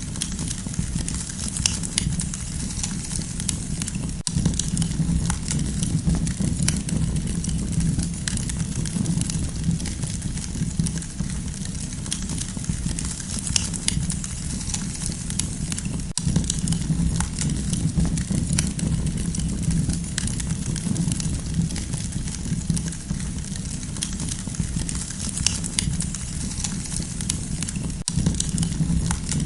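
Campfire burning, with frequent small crackles and pops scattered irregularly over a steady low rumble of the flames.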